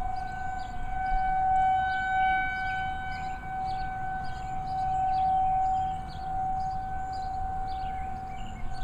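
Outdoor tornado warning siren sounding a steady, single-pitch tone during a routine monthly test, swelling and fading in loudness.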